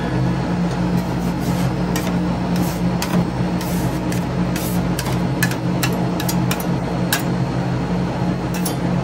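Metal spatulas tapping and scraping on the frozen plate of a rolled-ice-cream machine, in irregular sharp knocks, over the machine's steady refrigeration hum.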